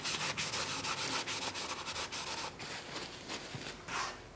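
Cloth rag rubbed briskly around the inside of a freshly honed Briggs & Stratton cylinder bore, wiping out oil and honing grit. Rapid scratchy rubbing strokes die away after about three seconds, with a soft swish near the end.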